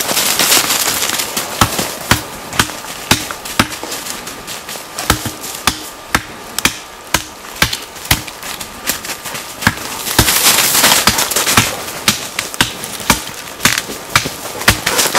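Axe blows chopping into a young birch trunk, a steady run of sharp strikes about two a second. Branches rustle at the start and again about two-thirds of the way through.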